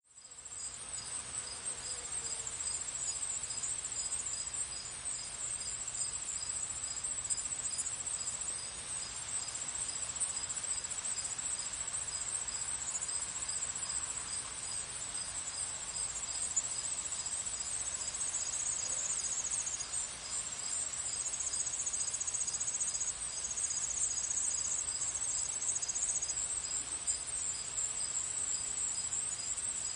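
Crickets chirping in a dense, steady high-pitched chorus. Through the first half one cricket chirps in an even rhythm, about one and a half chirps a second. Another trill comes and goes later on.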